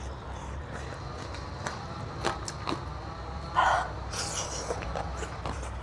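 A person chewing and eating with the mouth close to the microphone: scattered soft clicks and smacks, with a brief louder wet noise about three and a half seconds in.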